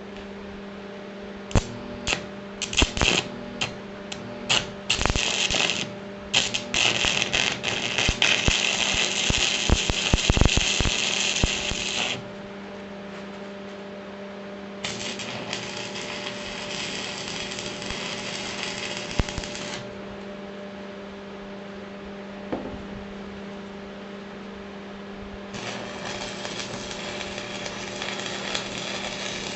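Stick (arc) welder on steel: the electrode is struck several times with short crackling starts, then burns in three runs of steady crackle and hiss, about six, five and four seconds long, over a steady electrical hum.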